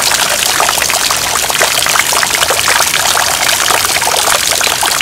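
Rain-swollen runoff water rushing and splashing over the ground in a shallow torrent, a steady loud splashing rush, left by the hurricane's heavy rains.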